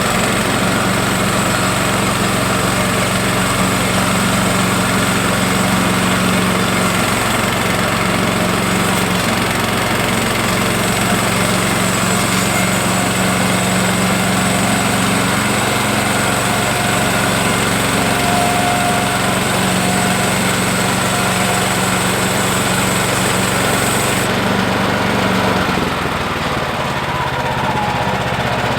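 Small gas engine of a Woodland Mills HM126 portable bandsaw mill running steadily while the band blade cuts through a log. Near the end a high hiss stops, and moments later the engine's tone drops lower and a little quieter.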